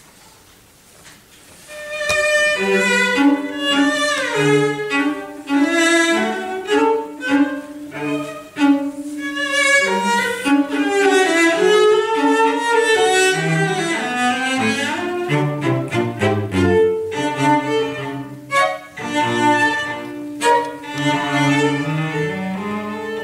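Cello ensemble playing a lively passage of short notes, with some sliding notes. It starts about two seconds in.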